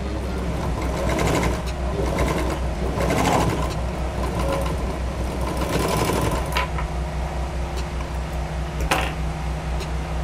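Pegasus DC-1S small overlock machine running, stitching and trimming a fabric edge as a test of its newly replaced and set blades. The busier sewing and cutting sound thins out a little past halfway, leaving the steady motor hum, and a brief sharp sound comes near the end.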